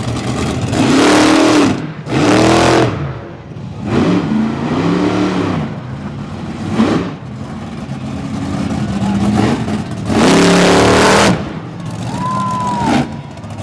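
Monster truck engine revving in repeated hard bursts, its pitch rising and falling with each blip. The loudest bursts come about a second in, near three seconds and around ten to eleven seconds. Near the end the pitch climbs to a high whine, holds briefly, then drops away as the truck is airborne off a jump.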